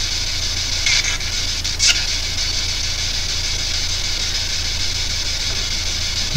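Steady electrical hiss over a constant low mains hum, with two brief flares of noise about one and two seconds in.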